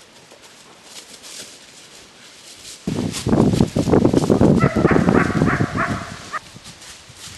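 German shepherd protection dog growling and snarling in a loud, rough burst of about three seconds that starts about three seconds in, with short higher-pitched cries in its second half.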